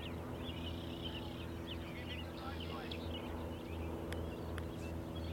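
Many small birds chirping and calling over a steady low hum; two sharp clicks a little after four seconds in.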